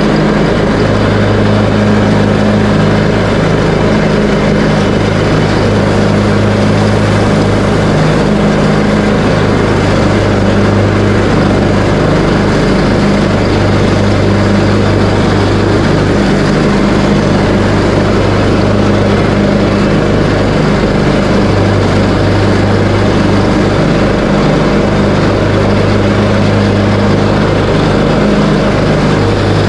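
Craftsman T130 riding lawn tractor's engine running steadily under load while mowing with the cutting deck engaged, a loud, even hum that holds the same pitch throughout.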